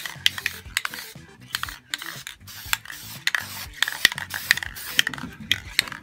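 Aerosol spray paint can in use: sharp irregular clicks of its mixing ball rattling, several a second, with a hiss of spray between them.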